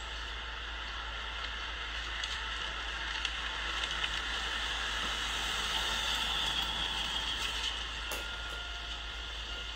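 Steady outdoor street ambience: an even hiss that swells a little in the middle, with a few faint clicks and ticks.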